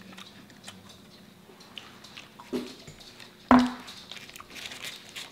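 Close-up eating sounds: biting and chewing, with small wet mouth clicks. A short sound comes about two and a half seconds in, and a louder sudden one about a second later.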